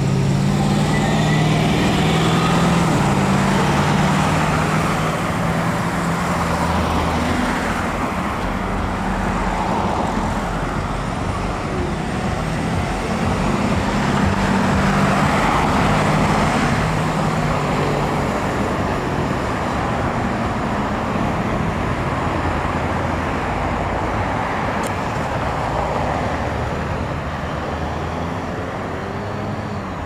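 Road traffic passing: car and truck engines and tyre noise, loudest near the start and again about halfway through.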